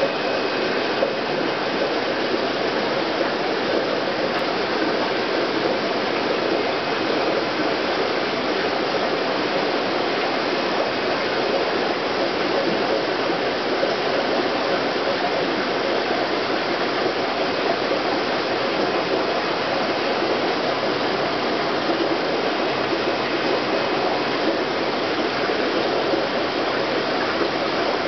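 Steady, even rushing noise of running water from an aquarium's water circulation.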